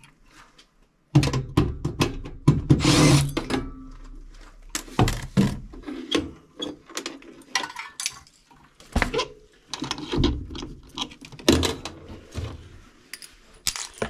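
Irregular metallic clanks, knocks and rattles of furnace parts being handled as a York gas furnace is taken apart, starting about a second in.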